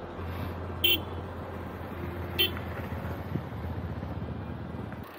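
Steady low rumble of wind and road noise from cycling a rough, potholed road. Two short, sharp high-pitched sounds come about a second and a half apart.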